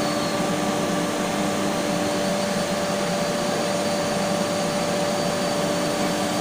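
Steady whirring drone of running rolling-mill machinery, with a few constant humming tones over an even noise and no pauses.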